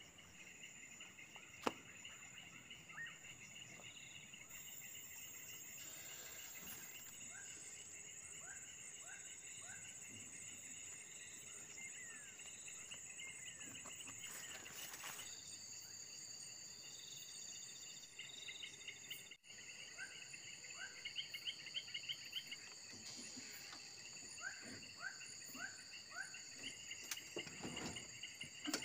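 Crickets and other insects chirring steadily at a high pitch, with a few runs of three or four short, falling chirps. A single click sounds near the start.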